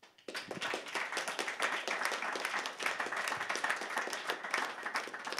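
Audience applauding: many hands clapping together, starting suddenly just after the start.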